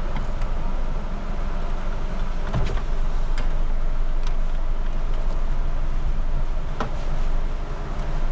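Steady cabin noise of a car idling, heard from inside: a low engine rumble under an even hiss, with a few faint light clicks.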